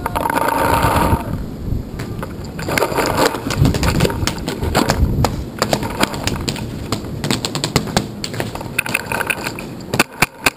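Paintball markers firing, with sharp pops and cracks of shots coming at irregular intervals. About ten seconds in, a marker opens up in a rapid, even string of about seven shots a second.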